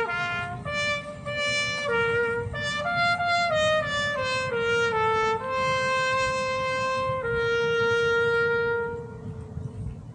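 Solo trumpet playing a slow melody, its notes stepping downward, then settling on long held notes that fade out near the end.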